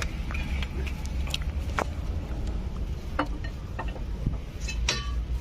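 Tata Hitachi hydraulic excavator's diesel engine running with a steady low rumble, with a few sharp metallic clinks and knocks from work on the machine.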